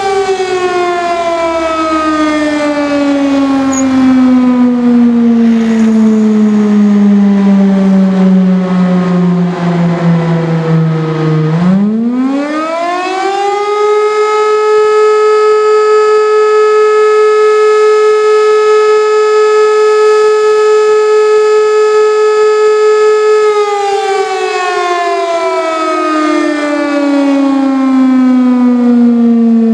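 Old WWII-era electromechanical air-raid siren sounding the German 'Feueralarm' fire-alarm signal in a test, with a full, eerie wail. Its pitch slowly sinks as the rotor winds down, then about twelve seconds in it spins up again to a steady high tone held for about ten seconds. Near the end it starts falling once more.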